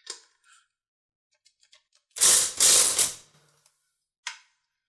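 Cordless power driver running in two short, rattling bursts about two seconds in as it loosens the 5/16-inch hex-head screws holding the drive belt guards, with a click near the end as the tool is handled.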